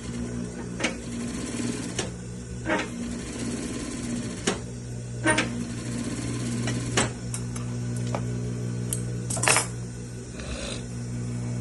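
Electric sewing machine running steadily as a seam is stitched, a low motor hum broken by several sharp clicks.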